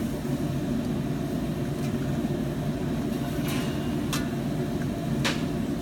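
A steady low hum, with three short clinks of a spoon against the pan about halfway through and near the end as the gravy is stirred.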